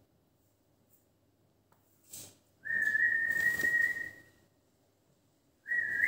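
Rose-ringed parakeet whistling: one steady high whistle held about a second and a half, then a second whistle starts near the end.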